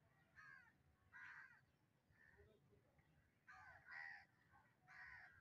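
Crows cawing faintly in the distance, a series of short harsh calls roughly one a second.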